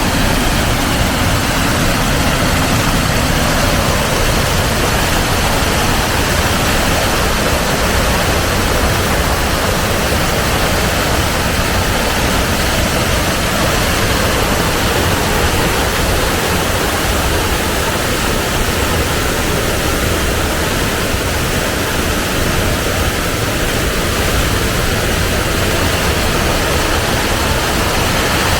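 Waterfall rushing: steady, loud falling water.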